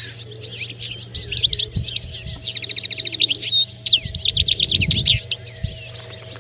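European goldfinches twittering, several birds calling over one another, with fast rattling trills about two and a half and four and a half seconds in.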